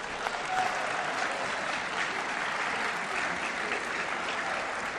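Many people applauding in a large chamber: dense, steady clapping at an even level.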